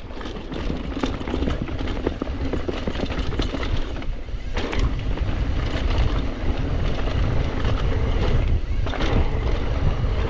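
Mountain bike on a downhill run: wind buffeting the microphone and tyre noise on the trail, picking up speed over the first few seconds, with frequent short rattling knocks from the bike over rough ground.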